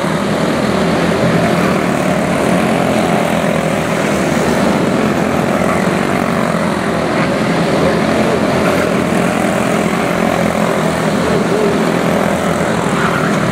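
A pack of quarter midget race cars lapping the track, their small single-cylinder Briggs & Stratton Animal engines buzzing together in a steady, loud drone.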